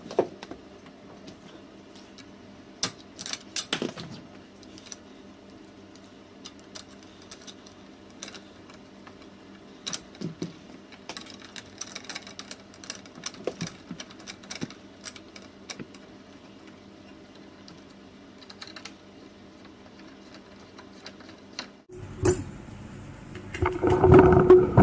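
Scattered small metallic clicks and clinks of a hex key and bolts being worked on a scooter's rear suspension bracket, bolts being tightened, over a faint steady hum. Near the end a louder sound with a steady tone starts suddenly.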